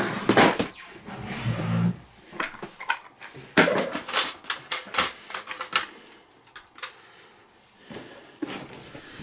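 Irregular clicks, knocks and rattles of plastic radio-controlled car parts being handled and fitted together during assembly.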